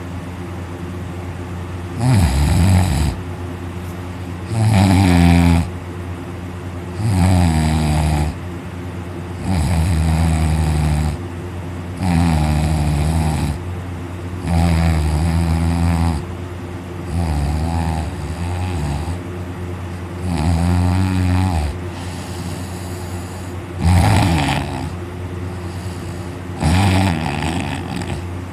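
A person snoring loudly in deep sleep. The snores last about a second each and come every two to three seconds.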